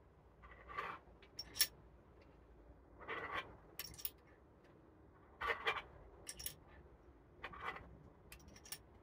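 Faint, irregular small metal clicks and light scraping as BB shells are handled and pushed one at a time into the cylinder of an Umarex Smith & Wesson 629 CO2 revolver.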